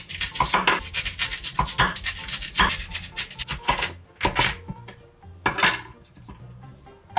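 Chef's knife cutting through a raw Korean radish on an end-grain wooden cutting board: a dense run of quick cutting strokes through the first four seconds as the radish is sliced into thick rounds, then a few single cuts as a round is halved.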